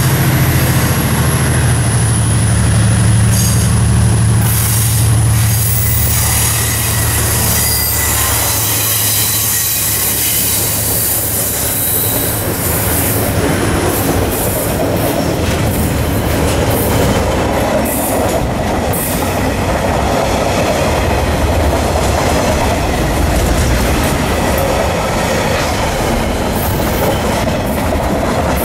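A train passing close by. A low hum fades over the first eight seconds or so, giving way to a steady rumble of steel wheels clicking over the rail joints, with some high-pitched wheel squeal.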